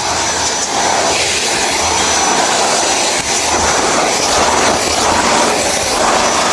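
Vacuum cleaner motor running steadily with a thin high whine over a rush of air. The airflow swells and fades a little as the nozzle moves.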